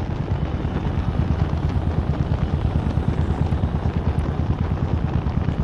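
Steady rumble of a moving vehicle's engine and road noise, with a fast fluttering pulse in the low end.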